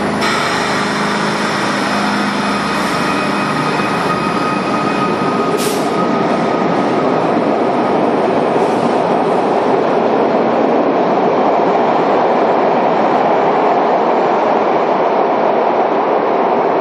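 SEPTA Broad Street Line subway train running, with a steady rumble of wheels on the rails. A steady motor whine sounds over it for the first six seconds or so, a sharp click comes at about six seconds, and the rumble then grows a little louder.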